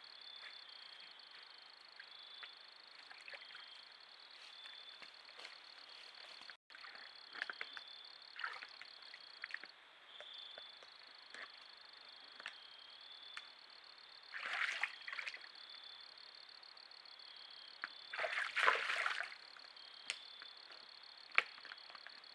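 A steady, high, finely pulsing insect chorus. Two louder scuffling, rustling bursts come past the middle, and a sharp click near the end.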